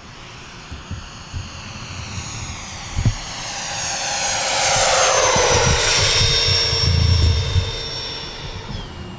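Twin 70 mm twelve-blade electric ducted fans of a large RC airliner model making a low pass. The high whine builds, is loudest a little past halfway, and falls in pitch as the model goes by. It steps down in pitch again near the end.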